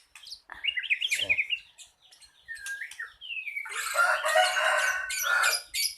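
White-rumped shama (murai batu) calling: a quick run of high chirps about half a second in, a few short notes, then a longer, louder harsh phrase starting about three and a half seconds in.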